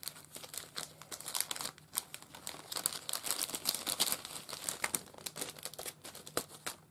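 Clear cellophane packaging bag crinkling and rustling in irregular crackles as paper craft cards are slid back into it.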